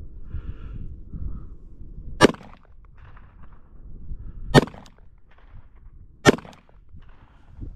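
Three shots from a Rock Island Armory Tac Ultra 1911/2011 .45 ACP pistol, the first about two seconds in and the others about two seconds apart, each a sharp crack. Wind rumbles on the microphone between them.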